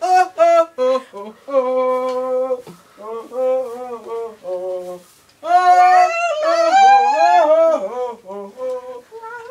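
Young people singing in high, wavering voices, in phrases of sliding notes and one long held note, with a short pause about halfway through; the loudest singing comes just after it.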